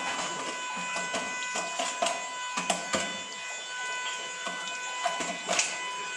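Steady electronic hum and tones of metal detectors switched on and sweeping, several pitches sounding together, with a new tone joining about halfway through. Irregular clicks and crunches of rock and gravel underfoot come through over them.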